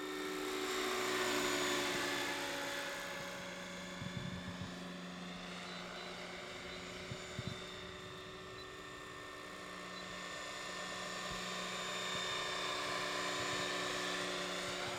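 Radio-controlled scale helicopter (Eurocopter AS355 body on a Century Falcon frame) flying, a steady high-pitched whine over a lower rotor hum. It swells louder as it passes close about a second in and again near the end.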